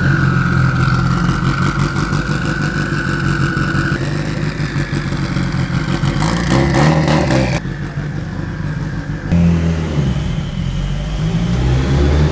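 Turbocharged Mitsubishi Lancer Evolution VIII 4G63 four-cylinder running, its revs rising and falling, with a faint rising whine late on.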